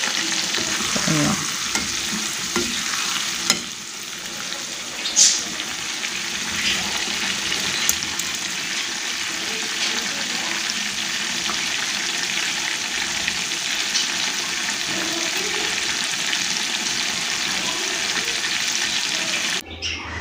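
Battered chicken pieces deep-frying in hot oil in a stainless steel pan: a steady sizzle with a few small clicks. It cuts off suddenly near the end.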